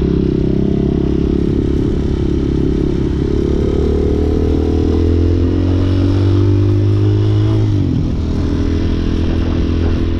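Hawk 250 motorcycle's engine running under way, its pitch climbing slowly as speed builds. It drops suddenly about eight seconds in, at a gear change, then climbs again.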